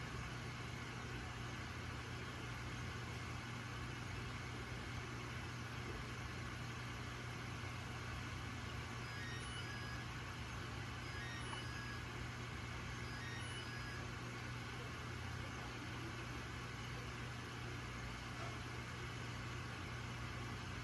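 Aquarium filter or pump running: a steady low hum with an even hiss. A few faint, short high tones come in clusters about halfway through.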